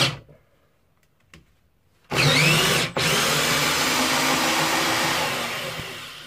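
Cordless drill-driver driving a long 6 x 120 mm carpentry screw into a thick timber block. It stops at the start and a small click comes after a pause. About two seconds in the motor spins up again with a rising whine, cuts out briefly near three seconds, then runs on under load and slows and fades near the end.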